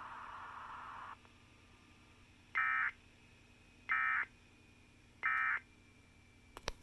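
Emergency Alert System End of Message data burst, sent three times: three short warbling digital tone bursts about 1.3 seconds apart, marking the end of the alert. A hiss of radio noise cuts off about a second in, and sharp clicks come just before the end.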